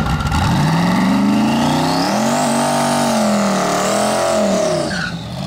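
Twin-turbo V8 of a Fox-body Mustang drag car revving hard through a burnout, the rear tyres spinning and smoking. The revs climb, dip and climb again as it bangs gears through its Lenco transmission, then drop off near the end.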